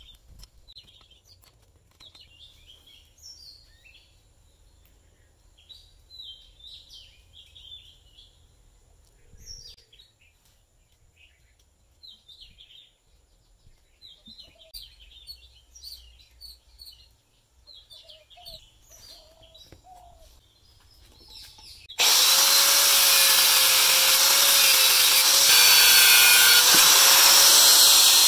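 Faint bird chirps for about twenty seconds, then a power tool starts abruptly and runs loud and steady with a slightly wavering hum.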